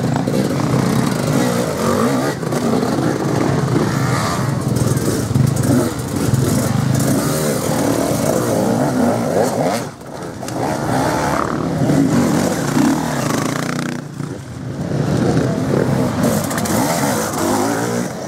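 Enduro dirt bike engines revving hard, rising and falling with the throttle as the bikes climb loose ground. The sound dips briefly about ten seconds in and again a few seconds later.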